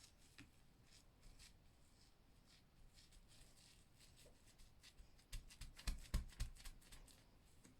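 Faint handling sounds of hands working small craft pieces: light scattered rustles and clicks, then a quick run of sharper taps about five to six and a half seconds in.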